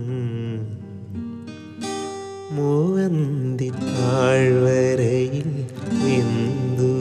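Acoustic guitar strumming in an unplugged Malayalam film-song cover, with a held, wavering sung note over it about halfway through.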